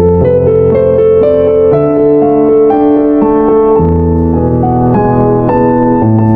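Background piano music, slow and gentle, with sustained bass notes under a melody.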